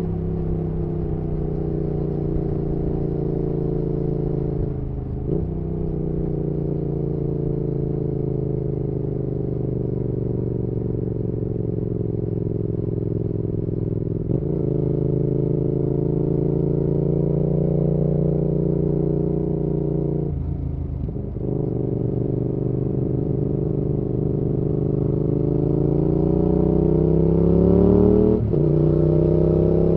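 Yamaha XSR700's 689 cc parallel-twin engine running under load through an aftermarket IXRACE MK2 exhaust. The engine note breaks and steps in pitch at gear changes about three times. Near the end the pitch climbs steadily and then drops sharply at an upshift.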